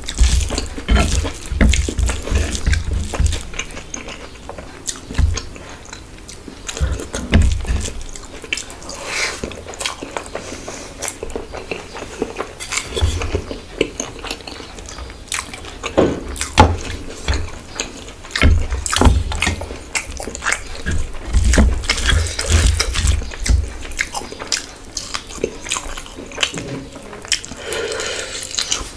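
Close-miked eating sounds: fingers squishing and mixing moist khichuri rice on a plate with many small wet clicks, a steel bowl of chicken curry tipped and scraped over the rice about halfway through, and chewing near the end.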